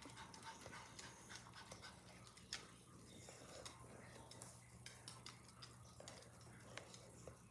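Pomeranians' claws clicking faintly and irregularly on a hardwood floor, with a dog panting, over a steady low hum.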